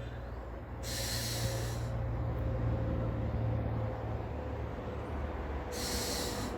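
Black-naped oriole giving two harsh, rasping 'kaek' calls, each about a second long, one about a second in and one near the end, over a steady low rumble.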